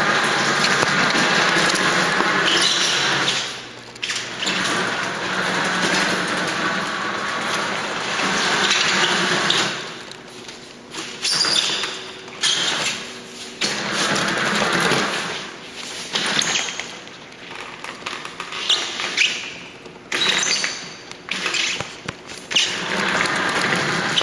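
Small tracked robot's electric drive motors and tracks running, steady for about the first nine seconds with a short break near the start, then in short stop-start spurts.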